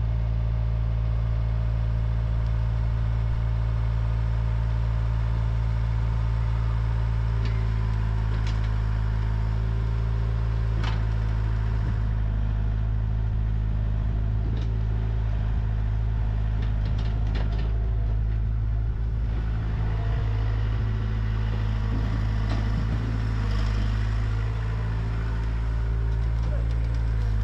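Diesel engine of a Komatsu PC60 mini excavator running steadily while it digs and loads soil into a dump truck. A few short clanks and knocks from the bucket and the soil are scattered through it.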